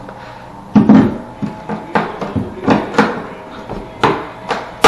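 A run of sharp knocks and bangs on wooden framing, about two or three a second, starting about a second in, the first and last hits the loudest.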